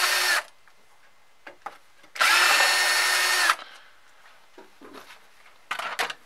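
Cordless drill-driver backing screws out of a sheet-metal base, running with a steady whine that stops just after the start and then runs again for about a second and a half. A short clatter follows near the end.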